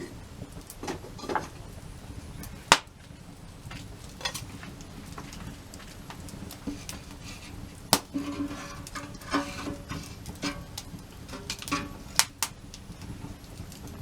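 Irregular sharp knocks and clinks of hard objects being handled, with the loudest strikes about three seconds in, near the middle and about twelve seconds in; several around the middle ring briefly with a metallic tone.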